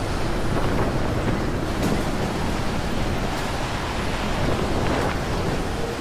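Strong blizzard wind blowing steadily, buffeting the microphone.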